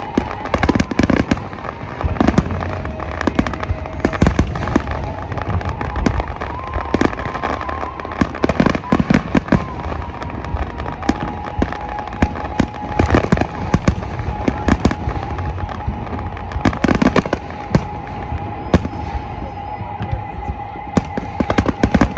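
Aerial fireworks going off in quick succession, with many sharp bangs and crackling bursts overlapping throughout.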